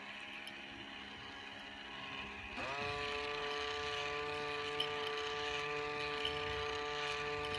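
A steady buzzing drone with many overtones that slides quickly up to a higher pitch about two and a half seconds in and holds there, slightly louder.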